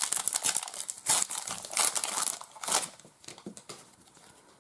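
Trading-card pack wrapper crinkling sharply as it is handled and torn open, the crackling dying away after about three seconds into a few faint ticks.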